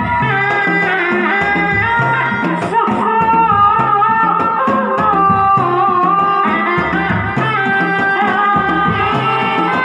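A reak ensemble playing: dogdog drums beaten with sticks in a repeating rhythm, with a wavering melody line over the drums.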